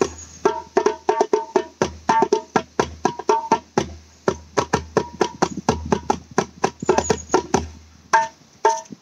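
Djembe played with bare hands in a fast, steady rhythm: quick runs of ringing slaps and tones mixed with deep bass strokes.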